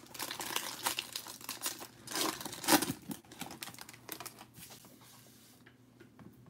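Foil wrapper of a Prizm basketball card pack crinkling and tearing as it is ripped open, loudest about two to three seconds in. After that come fainter rustles and light ticks as the cards are handled.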